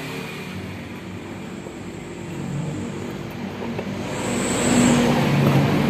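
A motor vehicle engine running steadily, growing louder about two-thirds of the way in.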